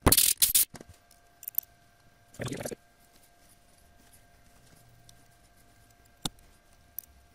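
Hand-tool handling noises: two loud rustling scrapes, one at the start and one about two and a half seconds in, and a few light metal clicks, as a spiral-flute tap in its hand tap wrench is brought up and set into the drilled stainless part. A faint steady hum sits underneath.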